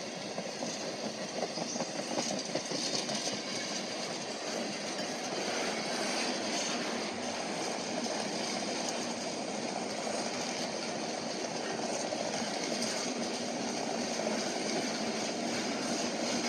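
Freight train cars rolling past close by, a steady noise of steel wheels running on the rails.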